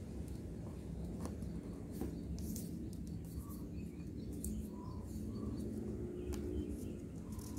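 Square sheet of paper being folded by hand on a wooden table: soft rustles and short crackles as fingers press creases and slide the flaps, over a steady low background hum. A few brief faint chirps sound now and then.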